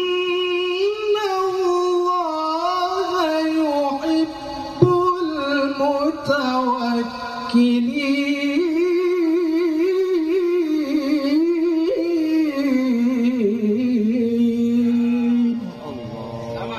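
A male qari chanting the Qur'an in the melodic tilawah style, holding long ornamented notes that waver and climb in pitch, with short pauses for breath. The chant stops shortly before the end.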